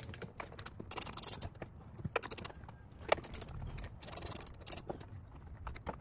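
Hand tools and plastic trim fasteners clicking and knocking while trim is worked loose. There are two short bursts of quick, dense clicking, about a second in and about four seconds in, with single clicks in between.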